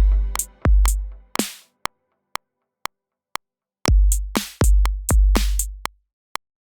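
VPS Avenger software synthesizer playing a sparse electronic drum-machine pattern: deep kicks with long low decays and short sharp ticks about every half second, with no melody. The pattern stops near the end.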